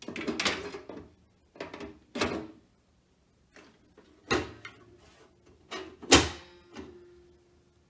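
Sheet-metal cover of a desktop PC case being fitted back on and closed: several scrapes and clunks, the loudest clunk about six seconds in followed by a short metallic ring.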